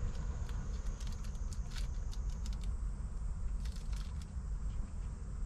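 Light, quick clicks and taps close to the microphone, in two bunches: one through the first half and a shorter one about four seconds in. Under them runs a steady low rumble and a faint high whine.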